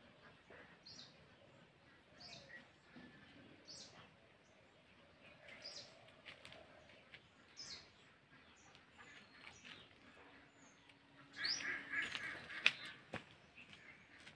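Faint bird calls: short, high, falling chirps repeated every second or two, then a louder, busier stretch of calls about eleven seconds in, with two sharp clicks near the end.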